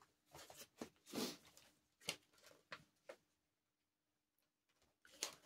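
Faint handling sounds of a Blu-ray case and its paper insert: a few short rustles and clicks in the first three seconds, a quiet pause, then another click near the end.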